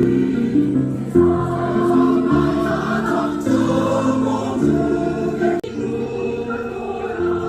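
Background music: choral singing in slow, held chords over a bass line.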